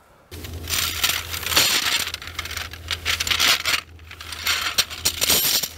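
16 mm metal tent poles clinking and rattling as they are handled, with rustling noise in between.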